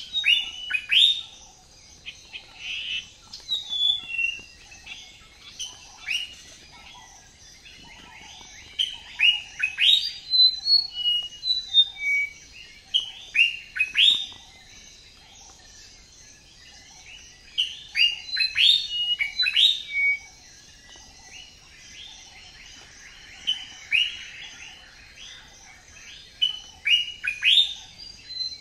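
Several small birds chirping and calling in the trees, with quick sharp falling notes in bursts that come and go every few seconds, over a faint steady high hiss.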